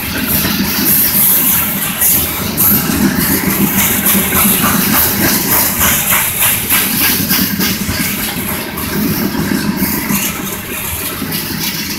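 Freight train of covered hopper cars rolling past: a steady rumble of steel wheels on rail, with a run of quick, even clicks a little past the middle as the car trucks cross rail joints.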